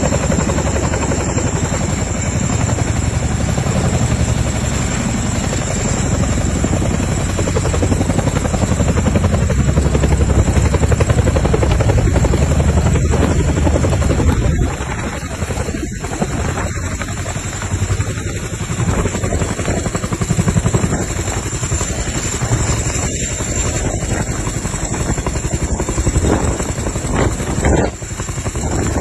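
Helicopter rotor running close by, a fast, even blade chop over a steady high whine. It is loudest in the first half and eases off a little about halfway through.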